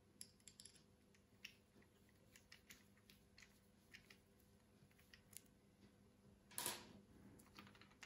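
Faint small clicks and ticks as a small tool works the knob screw of a Welock Touch41 smart lock cylinder and the metal lock is handled, with one brief louder noise about six and a half seconds in.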